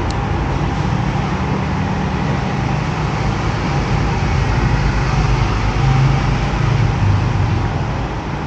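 Motorcycle engine running at low speed while riding slowly, getting louder toward the middle and then easing off.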